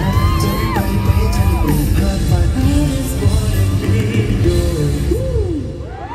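Live pop song: a male voice singing over a band with a heavy beat, with fans' high screams rising above it. The music thins out and drops away near the end.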